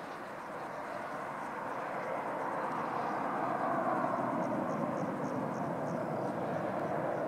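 Airbus A320 jet engines at takeoff thrust as the airliner climbs away just after liftoff: a steady, rushing jet noise that grows louder over the first few seconds and then holds.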